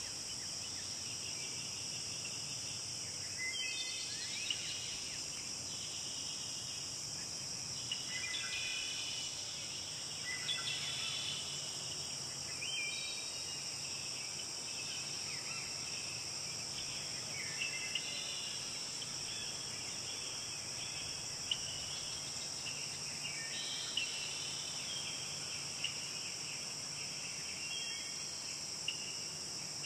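A steady, high-pitched drone of insects such as crickets, with birds chirping and trilling over it in short, scattered phrases and a few brief sharp ticks.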